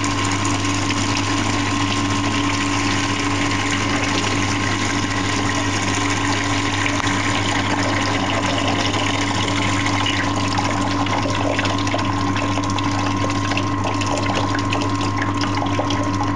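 Water jetting out of a small hole near the bottom of a container and splashing steadily as the tank drains, with a steady hum underneath.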